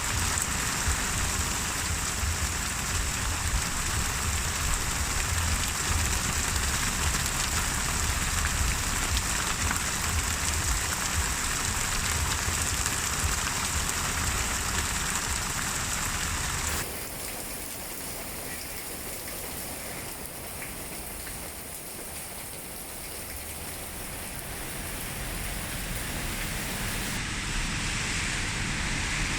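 Steady rain with a deep low rumble that cuts off abruptly about halfway through. It is replaced by a quieter, thinner rain sound, which changes again near the end.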